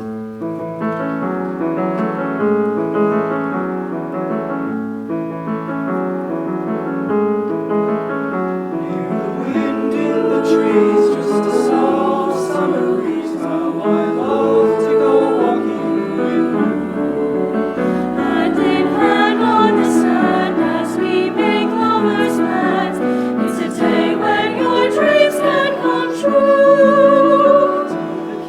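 School choir singing with piano accompaniment as a piece begins: the music starts suddenly after a pause, with held notes at first, then grows fuller and louder as the voices come in with words from about nine seconds in.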